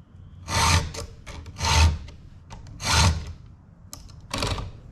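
Chainsaw file rasping across a ripping-chain cutter, four light push strokes a little over a second apart.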